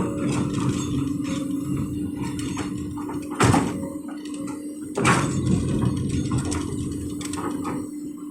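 Komatsu PC200 hydraulic excavator at work: its diesel engine runs at a steady pitch under sharp metallic clunks from the working gear, the loudest about three and a half and five seconds in.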